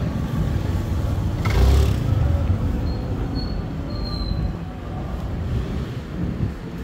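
City street traffic rumbling steadily, with a short loud hiss about a second and a half in and a thin, high squeal a few seconds later.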